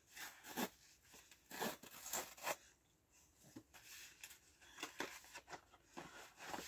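Cardboard mailer envelope being torn open by hand: a run of short, faint tearing and crinkling bursts.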